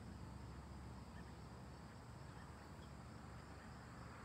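Near-silent outdoor background: a faint, steady high insect buzz over low hiss and hum.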